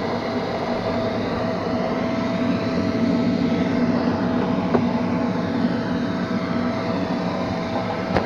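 Neato XV-21 robot vacuum running, heard from on board: a steady motor hum with a held whine over it, and one short tap about four and a half seconds in.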